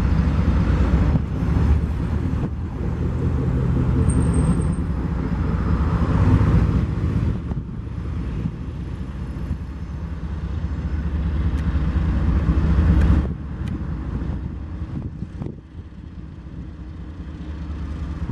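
Diesel-electric freight locomotives working as the train pulls out slowly: a steady, heavy low rumble that drops off sharply about thirteen seconds in.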